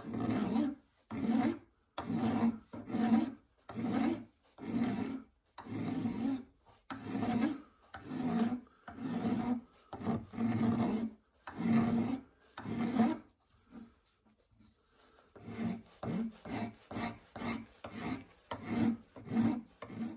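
Flat hand file stroking back and forth across brass, filing the leftover brass on a small hammer head down flush. Steady rasping strokes come about one and a half a second, break off briefly about two-thirds of the way through, then resume quicker and shorter.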